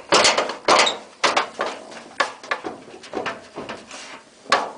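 Irregular knocks and scraping from the opened-up Hotpoint Aquarius VTD00 tumble dryer as its drum is moved by hand. The drum has come off its broken bearing shaft and is slanting back. The loudest knocks come just after the start and again near the end.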